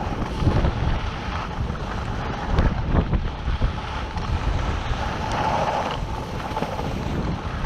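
Wind buffeting the microphone of a camera carried by a moving skier, a gusting rumble with the hiss of skis sliding over packed snow.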